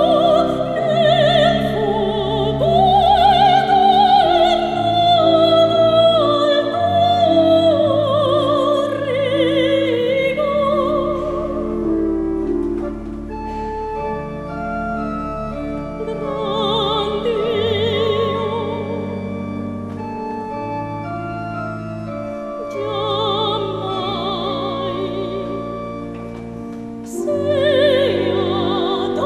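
Soprano singing a slow sacred aria with wide vibrato over pipe organ accompaniment. After about ten seconds the voice stops and the organ plays alone. She returns with two short phrases separated by organ, then sings out loudly again near the end.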